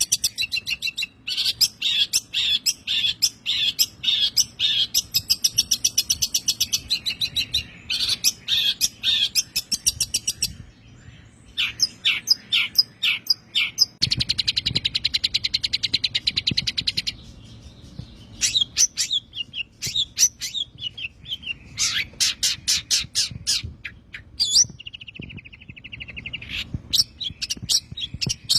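Long-tailed shrike (pentet) singing its fast 'tembakan' phrases: runs of rapid, repeated high chattering notes and trills, broken by short pauses, with a lower buzzy trill near the end.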